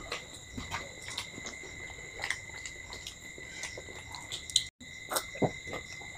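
People chewing and eating momos by hand, with scattered small clicks and taps, over a steady high-pitched whine that does not change. The sound drops out for an instant a little before five seconds in.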